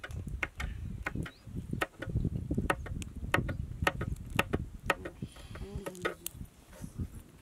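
Kitchen knife chopping green beans on a plastic cutting board: a run of quick, irregular taps, about three a second, thinning out near the end.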